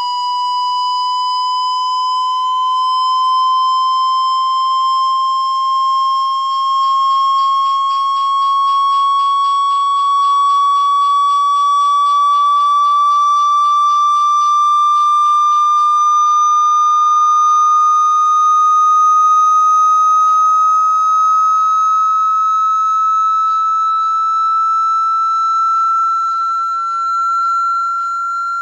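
Water-eject tone for clearing water from a phone speaker: a single steady high tone gliding slowly and evenly upward in pitch, with a faint rapid buzz over it through the middle.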